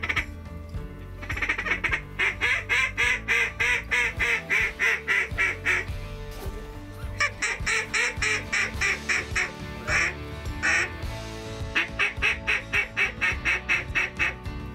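A duck call blown in three long runs of rapid, evenly spaced quacks, about four a second, with short breaks between runs: a hunter calling to turn a circling flock of ducks back toward the blind.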